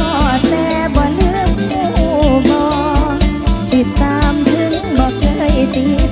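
Isan mor lam band music played live: a drum kit keeps a steady, even beat under a wavering lead melody.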